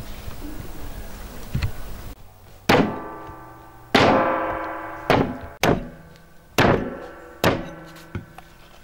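Cleaver chopping through lamb ribs on a wooden stump. There are about seven sharp chops, roughly one a second, starting a couple of seconds in, and each leaves a short ringing tone that fades away.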